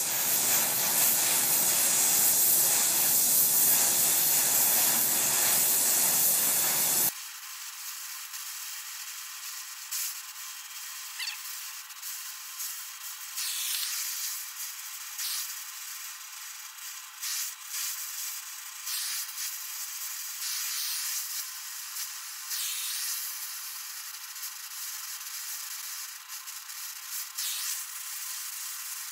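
Oxyacetylene torch flame hissing while bronze brazing rod is melted into grooves cut in steel. About seven seconds in, the sound cuts abruptly to a quieter, thinner hiss with brief louder flares.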